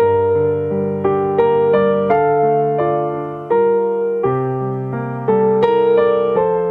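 Background music: a gentle, slow piano melody with soft chords, each note struck and left to fade.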